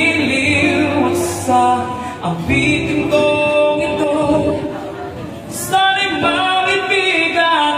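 A man singing a slow Filipino harana (serenade) melody into a microphone over a PA, with long held notes.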